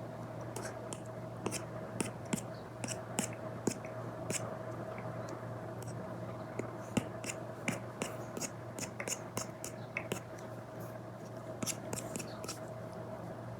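Apple Pencil tip tapping and scratching on an iPad's paper-like matte screen protector while drawing, in many quick irregular clicks. Underneath runs a steady hiss with a low hum.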